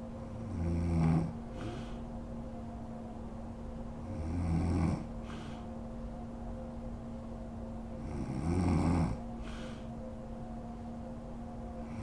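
A sleeping woman snoring in a steady rhythm: three rough snores about four seconds apart, each swelling louder and then breaking off sharply, with a fainter breath soon after each one.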